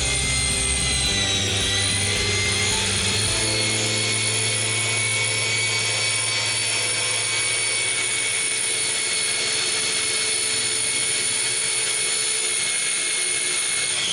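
Electric drill running steadily at high speed, driving a drill-bit sharpener attachment with a high whine. The whine sags briefly in pitch about a second and a half in, then recovers, and the drill stops at the very end.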